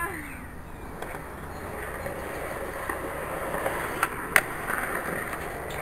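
Skateboard wheels rolling on concrete, growing steadily louder as the board comes closer, with two sharp clacks about four seconds in; the second clack is the loudest.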